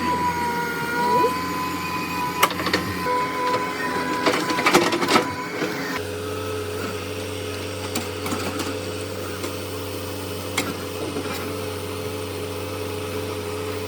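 Backhoe loader running, a steady mechanical hum with a held whine, with a few sharp knocks about two to five seconds in; the sound changes abruptly about six seconds in and then stays steady.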